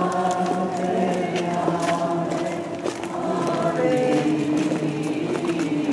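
A group of voices singing a slow Marian hymn together, with long held notes that step from pitch to pitch.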